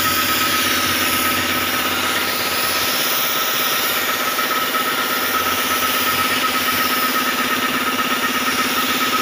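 A motor running steadily, with a constant high whine over a lower hum.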